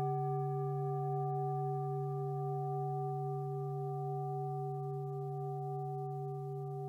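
A sustained ringing tone with several overtones, slowly fading, with no new strike.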